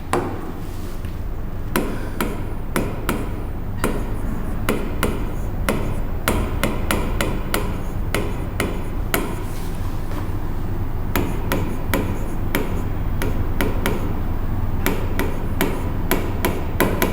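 Chalk writing on a blackboard: irregular sharp taps of the chalk, several a second, over a steady low hum.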